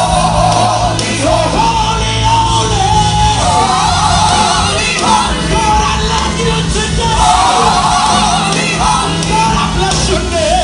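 Gospel choir and lead singers singing loudly over instrumental backing with long held bass notes.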